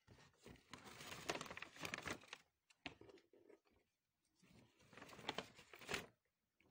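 Brown kraft-paper gift bag rustling and crinkling as it is handled. There is a longer spell at the start and a shorter one about five seconds in.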